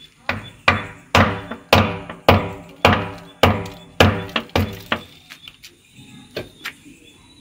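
Hand hammer striking at the concrete well wall, about two sharp ringing blows a second for roughly five seconds, then two lighter knocks near the end: the wall being broken open to reach a snake trapped inside it.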